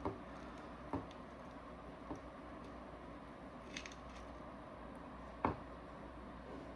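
Faint, scattered clicks of small metal parts and tools being handled while a paintball marker is taken apart by hand, about five in all, the loudest about five and a half seconds in, over a steady low hum.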